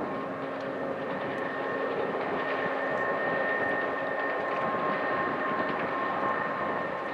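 Jet airliner engines running at taxi power: a steady rushing noise with several steady whining tones, swelling slightly mid-way.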